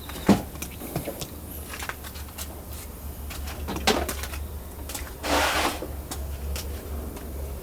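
Scattered knocks and clicks of objects being handled, with a short rushing burst a little after five seconds, over a steady low hum.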